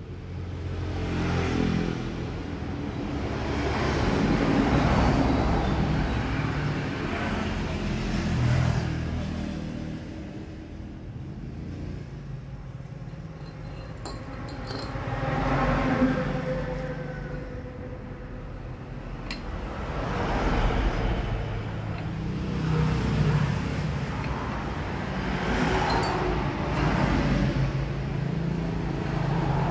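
Scooter engine revved up and let fall back again and again, in repeated swells of a few seconds each.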